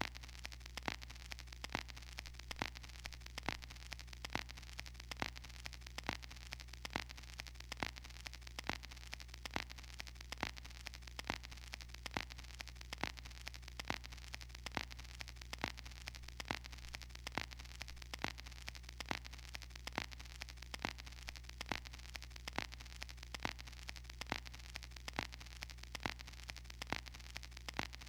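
Steady low electrical hum under a faint hiss, with sharp clicks ticking evenly about two or three times a second.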